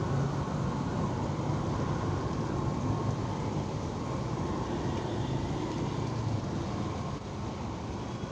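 Steady low mechanical rumble with no distinct events.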